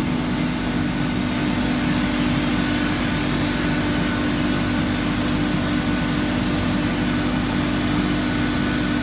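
Oil-free screw air compressor running loaded: a steady, unchanging machine hum with a strong low tone and an even hiss of air over the top.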